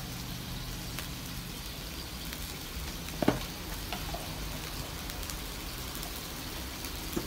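Broccoli sizzling steadily in a hot wok. There is a short knock about three seconds in and a fainter one near the end.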